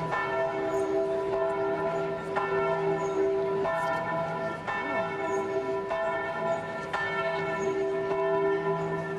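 Church bells ringing: a new stroke about every second, each ringing on and overlapping the last in several pitches.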